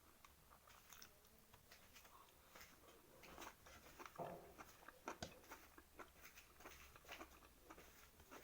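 Faint chewing and eating sounds: soft, irregular mouth clicks and smacks, a little busier towards the middle.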